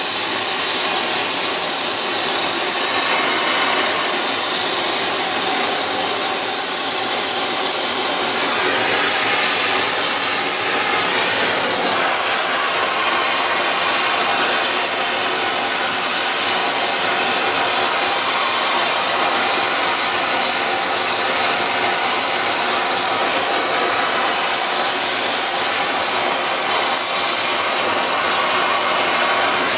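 Oxy-acetylene torch with a rosebud heating tip burning against a metal pipe, an even, loud hiss that holds steady throughout, as the pipe is heated.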